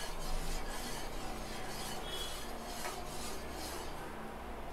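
A small spoon stirring cream of rice in a pot, scraping the bottom in repeated strokes about two a second, over a low steady hum. The strokes stop shortly before the end.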